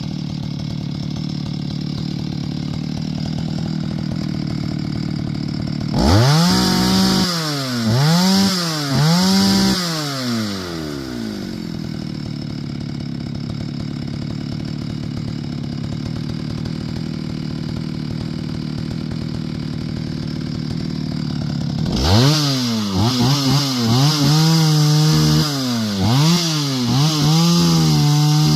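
Two-stroke chainsaw idling, then revved up and down three times, settling back to idle. Near the end it is revved repeatedly, with the revs held high between short drops.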